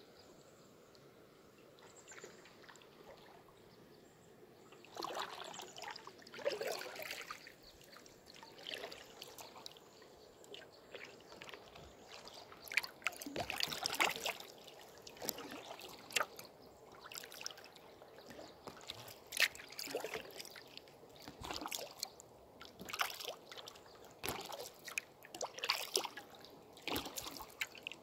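Canoe paddle working calm river water: irregular small splashes and trickling drips with no steady rhythm. The first few seconds are only a faint hiss, and the splashes begin about five seconds in.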